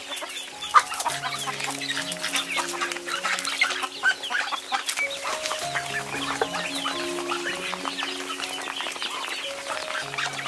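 A flock of ducks and chickens feeding from shallow pans: a dense patter of quick pecking clicks and chickens clucking, with soft background music of long held notes underneath.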